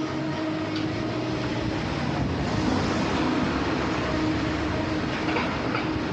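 Construction site noise: heavy machinery running steadily, with a few sharp metallic clanks near the end.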